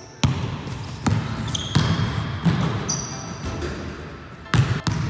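Basketball bouncing on a hardwood gym floor: several separate bounces under a second apart, a pause, then two more close together near the end. Short high squeaks of sneakers on the floor come between the bounces.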